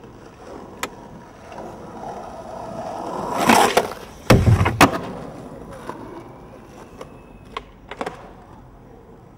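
Skateboard wheels rolling in over pavement, growing louder, then two hard clacks of the board about half a second apart as the trick on the curb is done and landed. The wheels then roll away and fade, with a few light clicks.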